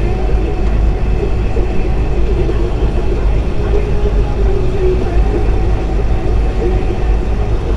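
Semi truck cruising at highway speed, heard from inside the cab: a loud, steady low drone of the diesel engine and road noise, with a wavering hum in the middle range.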